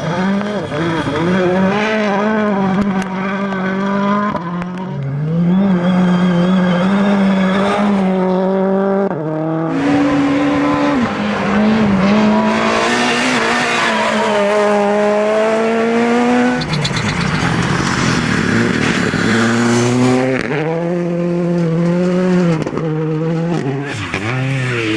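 Rally cars on a gravel stage, engines revving hard through the gears, their pitch climbing and dropping at each shift. A loud hiss of tyres on gravel rises over the engine in the middle stretch.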